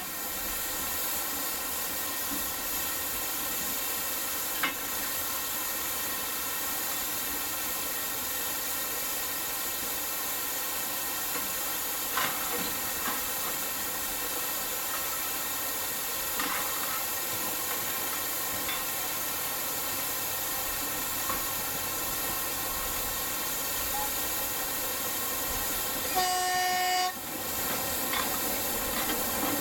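A steady hiss with a few faint knocks, then near the end a single horn blast of about a second from the narrow-gauge railcar.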